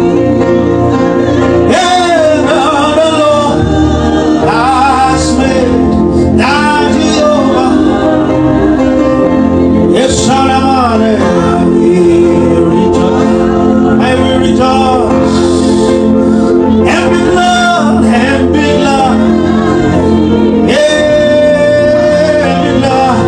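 Gospel praise music: male and female voices singing over sustained keyboard chords and a steady bass line.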